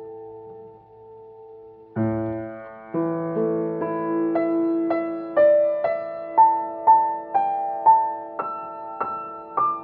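Upright piano played slowly in an improvisation. A held chord fades, a low chord is struck about two seconds in and another a second later, then single treble notes climb step by step, about two a second, over the sustained chord.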